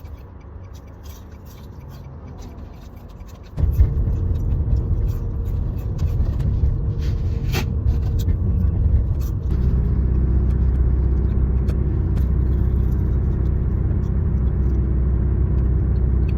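A car engine starts about three and a half seconds in and runs with a steady low rumble, growing a little louder partway through as the car gets under way. A few sharp clicks come before and during it.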